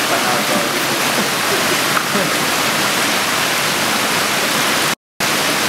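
Creek water pouring over low sandstone ledges in small cascades into pools: a steady, loud rushing. The sound drops out for a moment about five seconds in.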